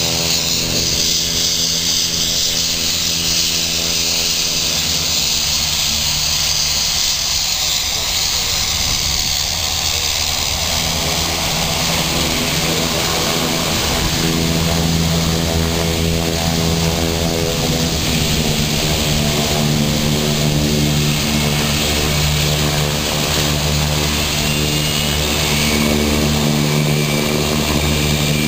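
Aircraft engines running steadily as a plane taxis, a constant engine hum with a hiss above it. A faint rising whine comes in near the end.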